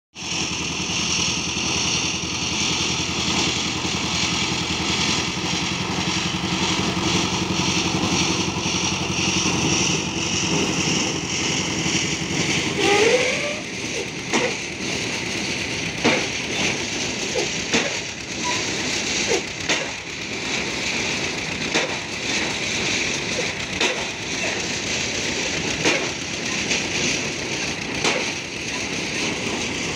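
Construction-site machinery: an engine runs steadily, its pitch rising briefly about halfway through. After that come irregular knocks and bangs of work, about one every second or two, over a steady hiss.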